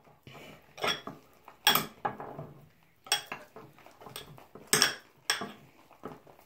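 A utensil knocking and scraping against a mixing bowl while slime is stirred: about five sharp clinks, irregularly spaced, with quieter scraping between.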